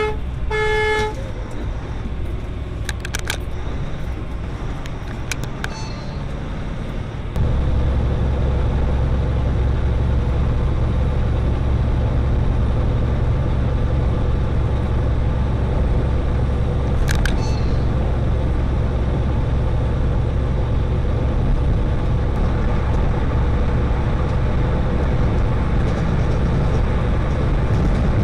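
A vehicle horn sounds briefly at the start. About seven seconds in, a steady low rumble of a semi-truck's engine and road noise at highway speed, heard inside the cab, takes over, with a few sharp clicks along the way.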